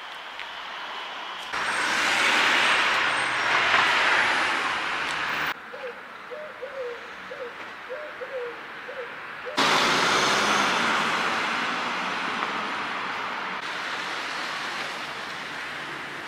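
Town street ambience in cut-together clips: traffic noise of passing cars, loud in two stretches, with a quieter spell in the middle holding a string of short, faint chirps.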